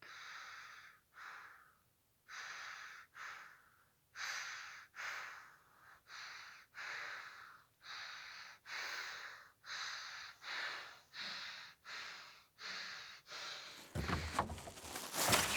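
A person breathing heavily, each inhale and exhale a separate breathy puff, in a steady rhythm that gets quicker. About fourteen seconds in, a louder rushing noise takes over, then cuts off suddenly.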